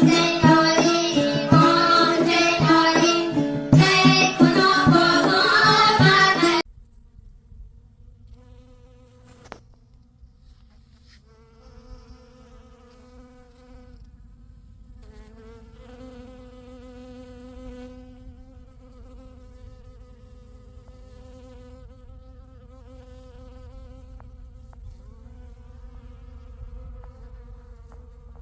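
Music that stops abruptly a few seconds in, followed by a flying insect buzzing with a wavering pitch, coming and going at first and then steady, over a low outdoor rumble.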